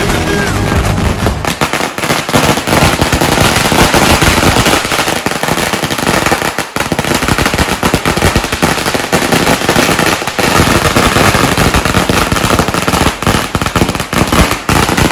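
A long string of firecrackers going off on the road, a rapid, unbroken chain of sharp bangs and crackles.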